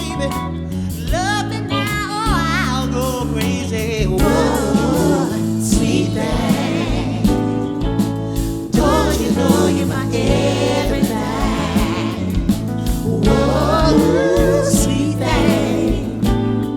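Live soul band with three women singing harmonies together, several voices gliding and bending over steady bass and chords.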